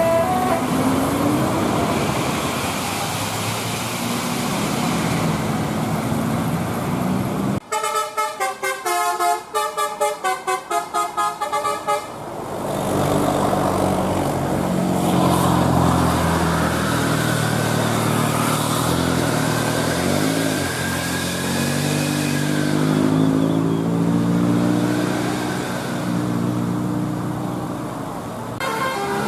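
Bus engine and road noise, the engine pitch rising and falling. About a third of the way in, a telolet basuri musical multi-tone bus horn cuts in for about four seconds, playing a quick tune of short notes.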